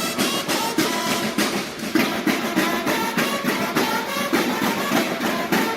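Mexican banda de guerra playing: bugles sounding a march over a steady beat of snare and bass drums. The music cuts off suddenly at the end.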